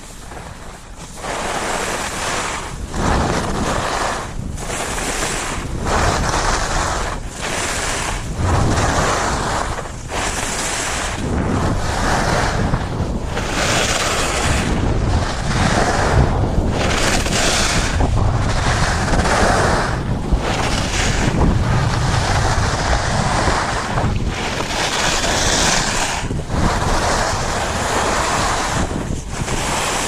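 Edges hissing and scraping on snow during a run down a ski slope, swelling and dipping with each turn about every second and a half. Wind buffets the camera's microphone throughout.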